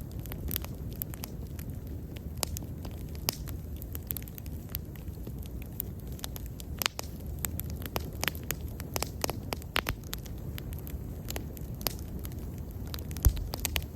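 Bonfire burning with a steady low rumble and irregular sharp crackles and pops, and a single low thump near the end.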